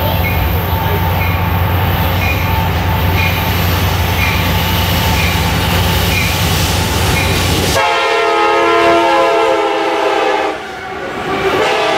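CSX diesel-electric freight locomotives approaching with a steady low engine drone and a regular ringing bell. About eight seconds in, the locomotive air horn blows a loud chord as the lead unit passes, breaks off briefly, and sounds again near the end.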